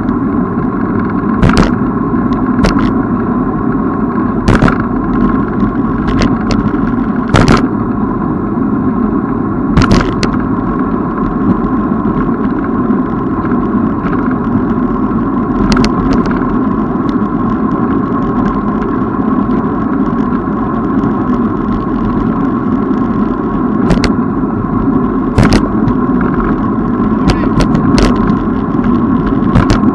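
Steady riding noise of a bicycle on a paved path, heard from a camera on the bike or rider: a constant rumble with a steady hum, and sharp clicks or knocks at irregular intervals, more of them near the end.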